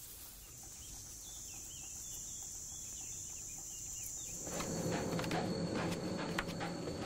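Summer wheat-field ambience: a steady high-pitched insect buzz with faint bird chirps. About four and a half seconds in, it changes to a fuller background with a low hum and scattered light knocks and rustles.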